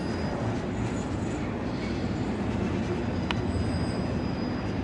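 CSX intermodal freight train's double-stack container cars rolling past on the rails: a steady low rumble of wheels and cars, with a faint high-pitched squeal and one sharp click about three seconds in.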